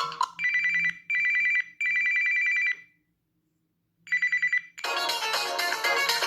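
Samsung Galaxy Ace Duos ringtones playing: a trilling telephone-bell ringtone rings three times, falls silent for about a second, and rings once more. About five seconds in, a new ringtone of busy electronic music begins.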